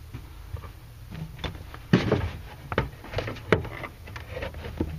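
Irregular clicks and knocks of hands working a Mercedes R129 power antenna assembly into place under the fender, as the mast is seated in its grommet ready to be screwed back on. The sharpest knock comes about two seconds in, another about a second and a half later.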